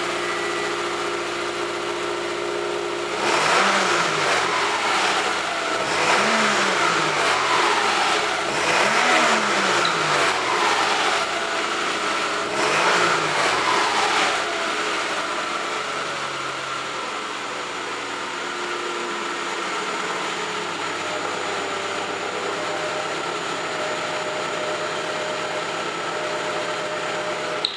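2007 Subaru Impreza 2.5i's flat-four engine idling through its exhaust, blipped four times in quick succession in the first half, each rev rising and falling back. It then settles to a steady idle.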